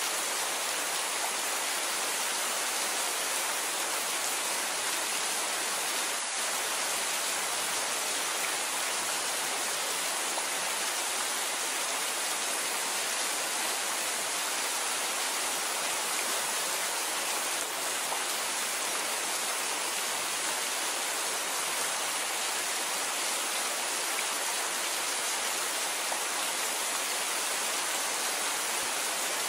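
Steady rainfall: an even, unbroken hiss of rain with no thunder.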